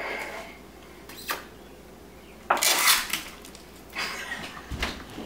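Spoon scooping yogurt out of a plastic tub: a light knock, then a scrape lasting under a second, and a few small knocks and clinks near the end.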